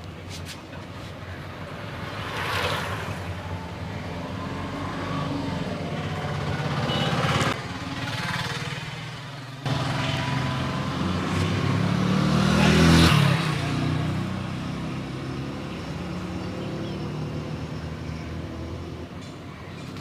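Road traffic going by: motor vehicles pass several times, each one rising and fading over a low engine drone. The loudest pass comes about thirteen seconds in.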